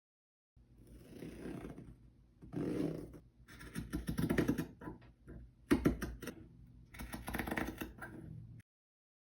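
Cordura nylon fabric being cut, a crackly rasping in several bursts of strokes.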